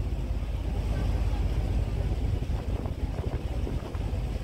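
Wind buffeting the microphone on the deck of a boat under way, a steady low rumble with a rapid flutter, over the boat's engine and water.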